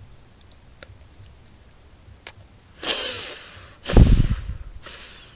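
Close breath noise on a phone's microphone: a breathy hiss about three seconds in, then a loud, muffled blast of breath right on the microphone about a second later.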